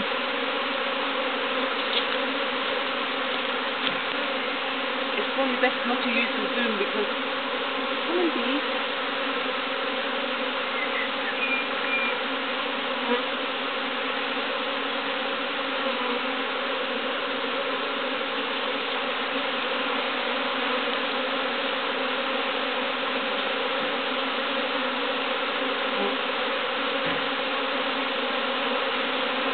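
Large honeybee swarm buzzing steadily at close range, its many wingbeats merging into one continuous hum.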